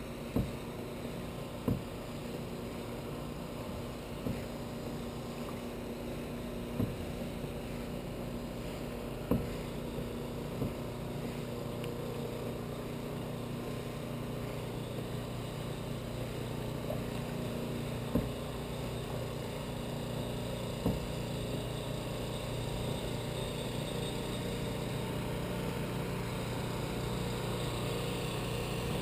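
Small boat motor running steadily at an even pitch, growing a little louder near the end, with a few light knocks against the hull.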